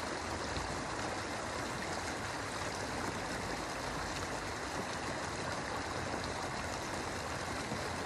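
River water rushing steadily over a concrete ledge, a constant even wash with no breaks.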